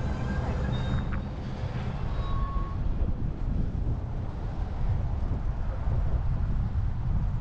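Vehicle driving, a steady low rumble of engine and road noise heard from inside the cabin.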